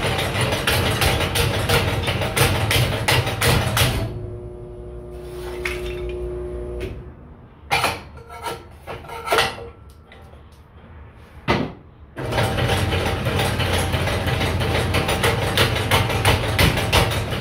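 Homemade motor-driven kindling machine running, its crank-driven ram clattering rapidly and evenly as it splits wood into kindling sticks. After about four seconds the clatter stops, leaving a steady hum and then a few separate wooden knocks, and it starts again a little after halfway.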